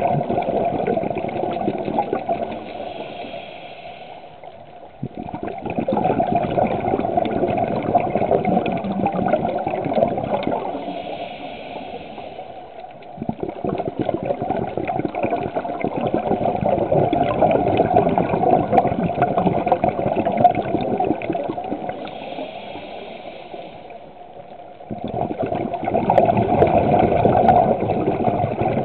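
Scuba diver breathing through a regulator underwater: long bubbling exhalations of several seconds alternating with short, quieter hissing inhalations, about three breaths in all.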